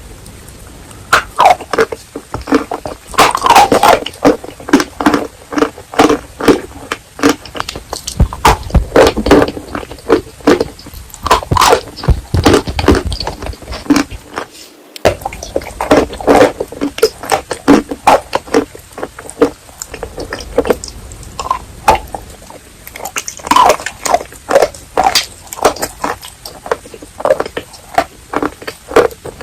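Close-miked chewing of wet chalk and clay paste: dense, irregular crunching and crackling bites with softer wet squishing between them. The sound cuts out briefly about halfway through.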